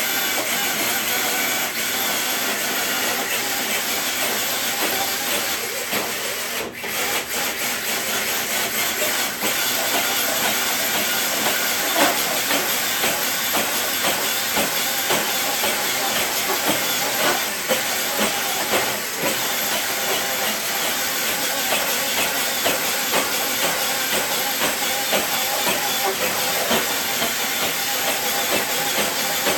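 Steady, hissy mechanical noise of an RC truck running, dipping briefly about six to seven seconds in.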